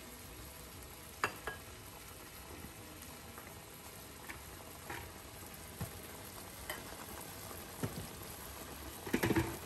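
Tomato, beef and egg stew simmering in a wok: a steady low sizzle and bubbling, with now and then a small pop. A brief clatter comes near the end.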